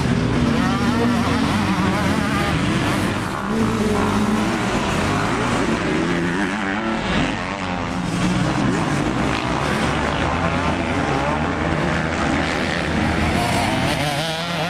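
Motocross bike engines revving on a dirt track, the pitch climbing and dropping again and again as the riders open and close the throttle.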